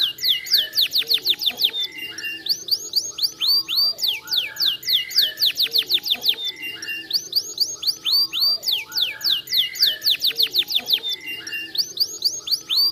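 Domestic canary singing: fast trills of short, downward-sweeping whistled notes, about eight to ten a second, in phrases that recur every few seconds.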